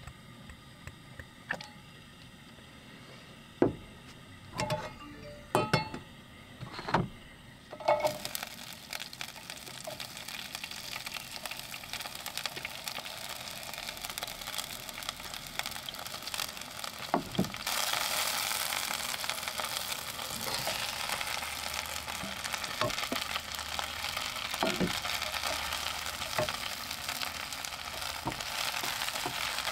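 Frying pan on a portable gas cassette stove: a few clinks and knocks of utensils and pan, then a soft sizzle starts about a quarter of the way in. About halfway through, the sizzle grows louder and steadier as green onions and mushrooms fry in hot oil.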